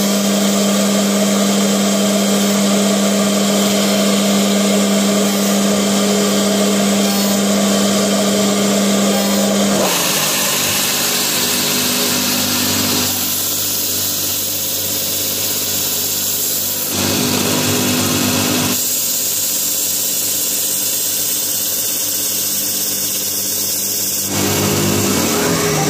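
CNC wood lathe running, with the wooden blank spinning while a motor-driven cutting head machines it: a steady machine whine. A strong steady low tone carries the first ten seconds, then the sound shifts abruptly in pitch and character several times.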